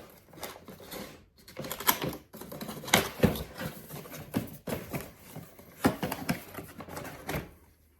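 A mail package being worked open by hand: the packaging rustles and crinkles with irregular clicks and crackles, a little louder about two and three seconds in.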